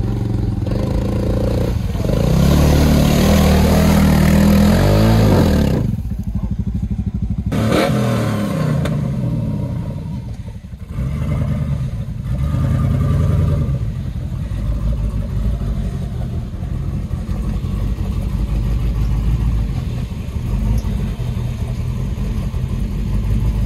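Side-by-side UTV engine revving in repeated bursts, its pitch climbing and dropping away, as it works through deep ruts of snow and wet sand. The longest rev comes about two seconds in, with shorter ones around eight and thirteen seconds.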